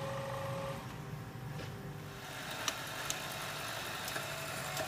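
Steady hum of a workshop machine's electric motor, with two light metallic clicks just under three seconds in as knife parts are handled in the fixture.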